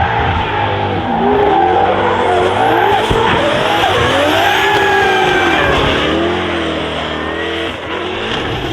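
Drift car's 2JZ-GTE turbocharged inline-six being revved hard, its pitch rising and falling repeatedly, over steady tyre squeal and skidding noise.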